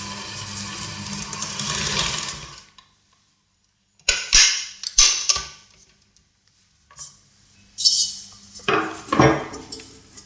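Electric mixer running with a steady hum while it works shortbread pastry dough, cutting off about two and a half seconds in. After a pause come a series of sharp knocks and clanks of a metal mixing bowl and utensils.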